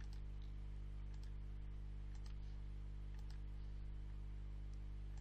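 Computer mouse clicks, mostly in quick pairs about a second apart, over a steady low hum.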